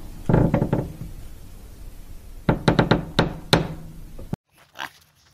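A guinea pig crunching a piece of carrot: a short burst of sharp crunchy clicks about half a second in and another run of four or five a couple of seconds later. The sound cuts off suddenly near the end.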